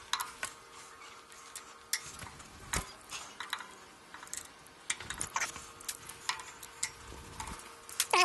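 Irregular light metal clicks and clinks of hand-held locking pliers and small metal parts being handled and adjusted, over a faint steady hum.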